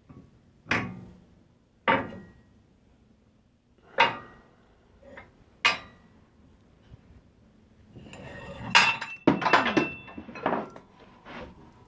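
Metal tools and parts being handled, knocking and clinking: four separate knocks a second or two apart, then a quick run of clanks with a ringing metallic tone near the end.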